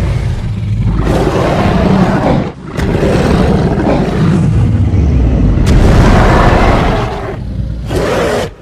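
Loud, rumbling sound effect with no clear pitch, heaviest in the low end, in two long stretches broken by a brief drop about two and a half seconds in, then a shorter burst near the end.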